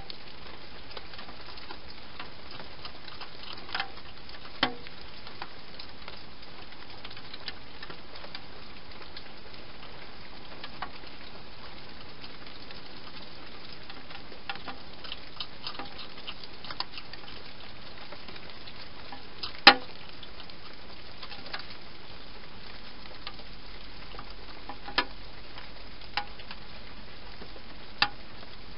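A hedgehog eating dry food inside a plastic feeding box: scattered sharp crunches and clicks over a steady hiss. The loudest comes about two-thirds of the way through.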